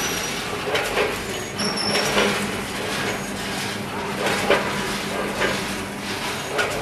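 Chips weighing and packaging machine running, with potato chips rattling and rustling as they drop through the hopper and funnel into bags. Sharp noisy bursts come about once a second over a steady low hum that stops about six seconds in.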